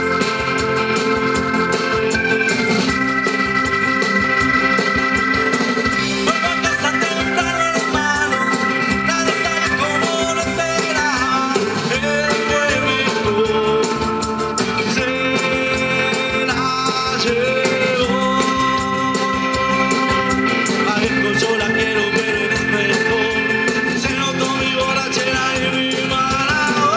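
A live band playing, with long held keyboard chords over guitar, bass and drums.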